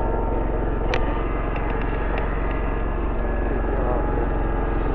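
2005 Walker GHS MT riding mower running steadily at an even engine speed, with a sharp click about a second in and a few faint ticks soon after.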